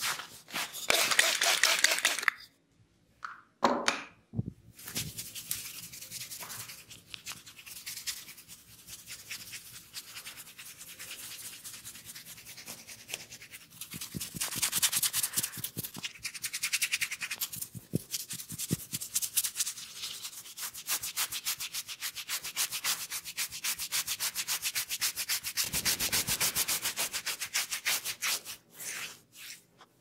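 Hands rubbing and kneading an oiled scalp and hair close to the microphone: a rapid, rasping run of many short strokes a second. It breaks off briefly about two and a half seconds in, then grows louder in the second half.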